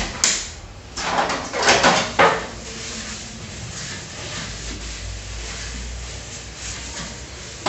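Metal baking tray being handled and greased: two sharp clanks at the start, then scraping and rattling between about one and two and a half seconds in, followed by quieter rubbing as oil is wiped over the tray.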